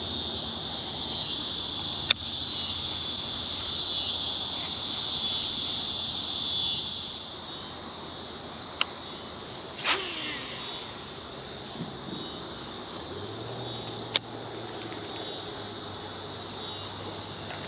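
Insects buzzing in a high, continuous drone that pulses in roughly one-second phrases for the first several seconds, then goes steadier and quieter. A few sharp clicks sound through it.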